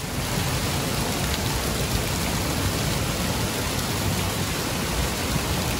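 Water rushing steadily out of the mouth of a tube water slide and splashing into the shallow pool below.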